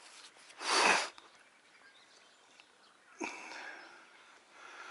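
A person's short, sudden burst of breath noise, once, about a second in, with a fainter sharp sound a little past three seconds.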